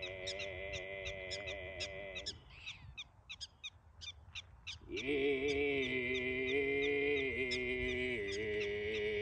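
Mongolian throat singing: a steady low drone with a whistling overtone held high above it, breaking off about two seconds in and resuming near the five-second mark, the drone stepping down in pitch twice near the end. Short sharp chirps repeat about four times a second throughout.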